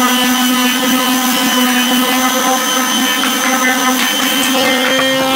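Electric palm sander running steadily as its pad sands along a wooden board, a constant motor hum with a whine. The tone shifts slightly near the end as the sander is moved.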